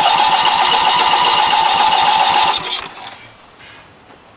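Electric starter cranking a Briggs & Stratton 16 hp opposed-twin lawn tractor engine with a rapid, even beat and a whine. The engine turns over without firing and the cranking stops a little over two and a half seconds in. It is getting no spark, and the ignition coil is suspected.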